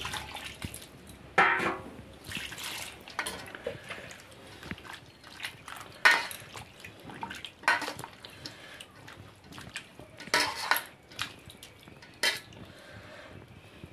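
Sliced radish rounds being swished and rubbed by hand in a stainless steel bowl of water, washing off salt before they are squeezed dry. There are irregular splashes and sharp clinks against the steel bowl, the sharpest about six seconds in.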